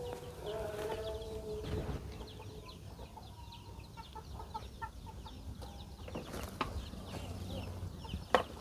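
Chickens clucking with drawn-out wavering calls for the first couple of seconds, then scattered faint ticks and a few sharp knocks near the end.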